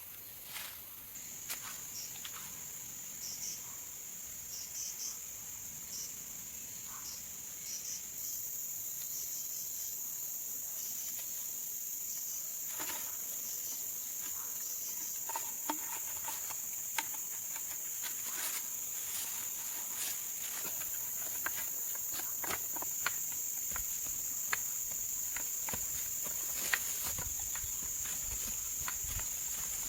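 Insects droning steadily at a high pitch, joined by a second, higher drone about eight seconds in, with scattered light clicks and taps.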